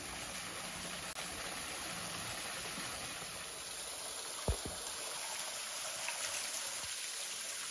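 Small waterfall trickling over rock ledges into a shallow pool: a steady rush of falling water. A single short thump comes a little past halfway.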